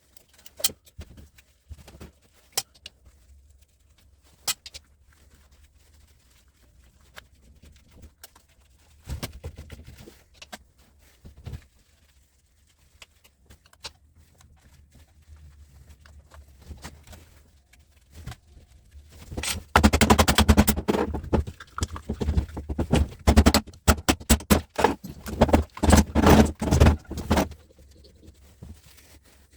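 Metal parts and hand tools clicking, knocking and clattering while a switchgear unit is taken apart, mostly by unscrewing. Scattered single clicks at first, then dense runs of quick clatter in the second half.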